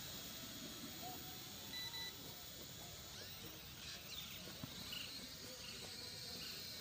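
Faint outdoor ambience: a thin steady high tone with a few short chirps over a low haze of wind noise.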